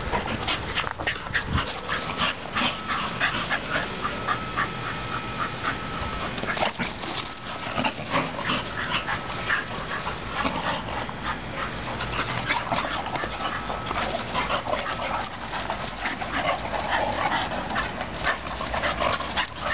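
Three dogs, a Standard Schnauzer, a black Labrador and a Bull Terrier, play-fighting, with a rapid stream of short yips and whines over scuffling.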